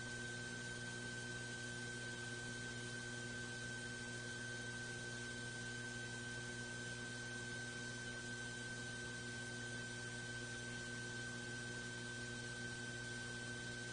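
Steady electrical hum and hiss with a thin high whine, unchanging throughout; no speech.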